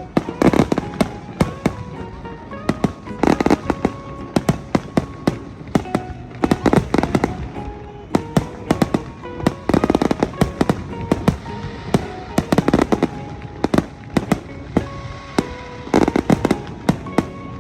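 Fireworks bursting in a dense barrage of bangs and crackles, building to heavier volleys every few seconds, with a melodic music track playing alongside.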